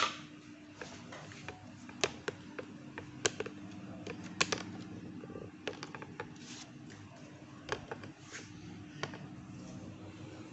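Irregular light clicks and taps from a handheld phone camera and tripod being moved and handled, over a steady low hum.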